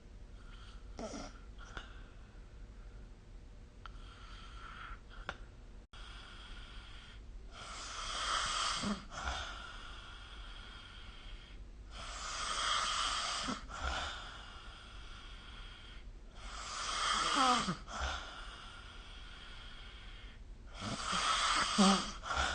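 A sleeping person snoring. The first six seconds hold quieter breathing, then come four loud snoring breaths about every four and a half seconds, each ending in a brief falling pitch.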